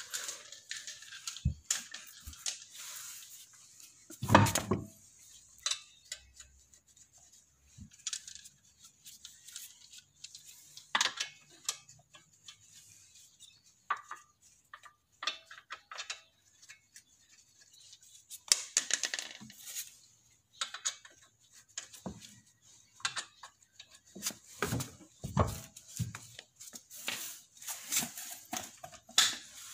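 Intermittent metallic clinks, clanks and knocks of hand tools and car parts being handled during the wheel refit on a brake job, with a busier run of clanks near the middle and toward the end.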